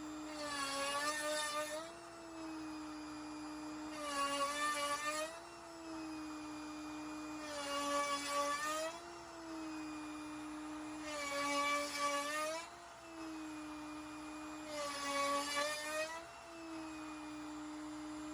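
CNC router spindle running with a steady whine while a 7/8-inch box cove bit cuts half-sphere divots in red-oak-veneered hardwood plywood. A louder, rougher cutting sound lasting about a second comes five times, about every three and a half seconds, one for each divot, and the spindle's pitch sags slightly under each cut.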